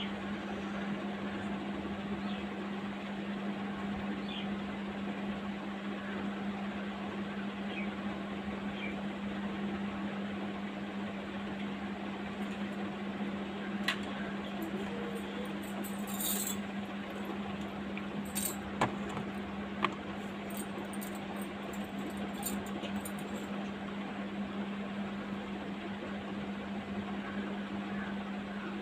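A steady low hum over a soft background hiss, with a few light clicks and taps about halfway through.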